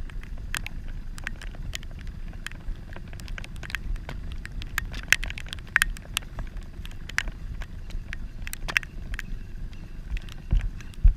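Heavy rain: a dense, irregular scatter of sharp drop ticks close to the wet camera, over a low rumble of wind on the microphone, with two louder thumps near the end.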